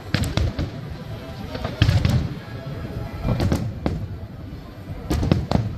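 Aerial firework shells bursting in clusters of deep booms and sharp cracks, about a second and a half between clusters.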